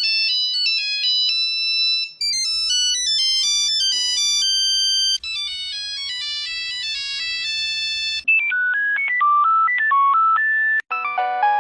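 Nokia mobile phone ringtones played one after another: short, bright electronic melodies, with an abrupt change to a new tune about every two to three seconds, five tunes in all.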